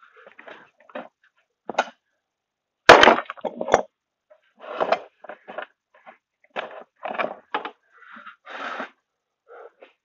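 Irregular knocks and clatter of metal scrap parts and tools being handled on a workbench, the loudest a sharp bang about three seconds in.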